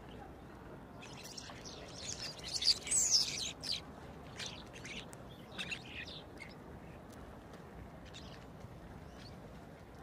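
Common starlings calling: a busy cluster of squeaky notes that glide up and down, loudest about two to three seconds in, then scattered shorter calls. A low steady background noise runs underneath.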